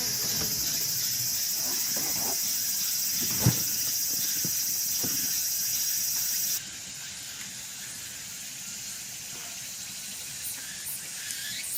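A steady, high-pitched chorus of summer insects in a forest, loud for the first six and a half seconds, then dropping suddenly to a fainter chorus. A single sharp knock sounds about three and a half seconds in.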